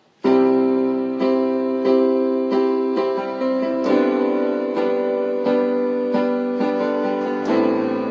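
Piano or electric keyboard music, an instrumental song intro: it starts abruptly just after the beginning and struck chords follow at a steady, moderate pace.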